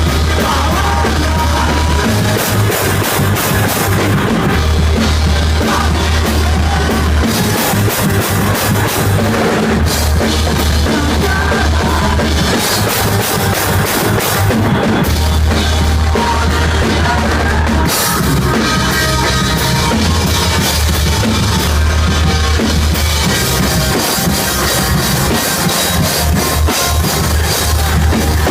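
A rock band playing live at full volume. A busy drum kit drives it, under deep bass notes held for a couple of seconds at a time.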